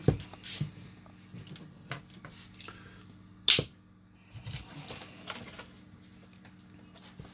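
Light bench handling noises: taps and clicks as a homemade LED light-bar circuit board is set down on a cutting mat. A short, sharp hiss about three and a half seconds in is the loudest sound.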